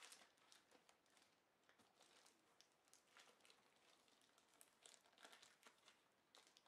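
Faint crinkling and rustling of the clear plastic wrap around a chess computer board as it is lifted and handled, in short irregular bursts, the sharpest crinkle right at the start.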